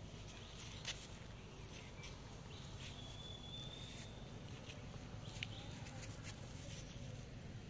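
Faint outdoor ambience with a steady low rumble and a few light clicks, plus one thin high whistle-like call held for about a second near the middle.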